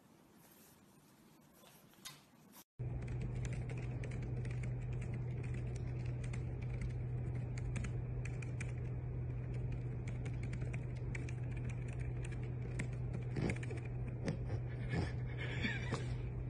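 Typing on a laptop keyboard: a quick, uneven run of key clicks over a steady low hum, starting about three seconds in.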